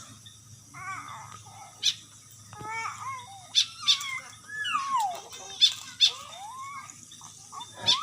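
Starling (jalak) calling: a run of varied whistled notes, several sliding down in pitch, with sharp clicks in between.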